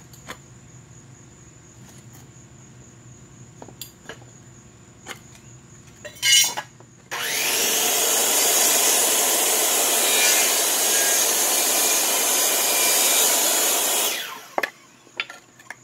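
Corded DeWalt circular saw whining up to speed about seven seconds in and cutting through old, dried wooden brace stock for about seven seconds, then stopping. Before it, a few light knocks of wood and hammer, with one louder clatter just before the saw starts.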